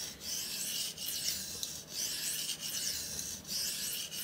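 Steel knife blade stroked along a 600-grit sharpening stone: about five slow, even scraping strokes, each a little under a second, with brief breaks between. This is the edge being abraded on one side until a burr forms on the opposite side.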